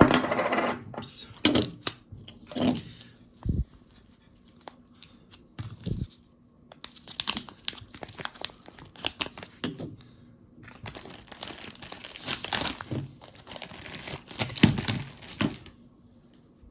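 Packaging being handled while silver bullion coins are unboxed: irregular crinkling and rustling with sharp clicks. It is loudest right at the start and thickens into longer crinkly stretches in the second half.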